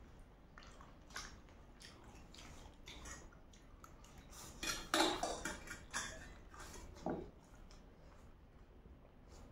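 Close-up eating sounds: forks clinking and scraping on metal plates while spicy noodles are slurped and chewed. The sounds come in scattered short bursts, busiest and loudest about halfway through.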